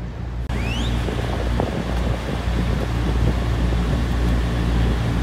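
Motor yacht under way: a steady low engine rumble under heavy wind noise on the microphone and rushing water, with a short rising whistle about a second in.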